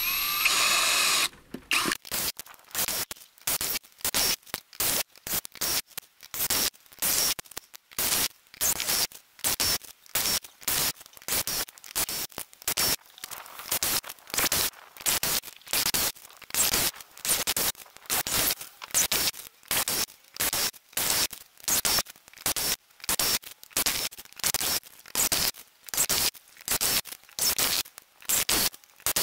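Brushless cordless drill-driver (Greenworks GD24DD60) driving self-tapping screws into a wooden beam one after another: a longer drive in the first second or so, then short repeated bursts of motor and screw scraping into wood, about two a second.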